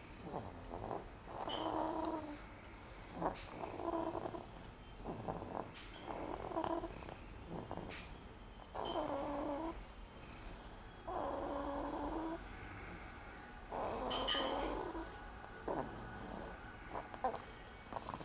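Snoring: about eight rough snoring breaths, one every two seconds or so, with a few sharp clicks between them.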